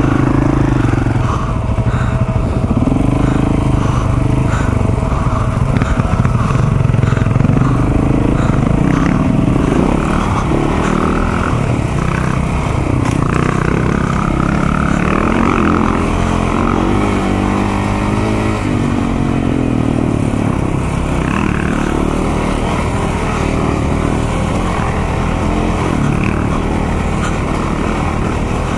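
Single-cylinder four-stroke KTM dirt bike engine heard from on board while riding, its revs rising and falling over and over with the throttle.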